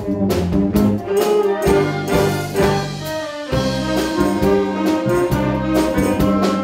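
Wind orchestra playing a medley arrangement of Korean popular songs: clarinets, flute and brass holding chords and melody over a steady drum-kit beat.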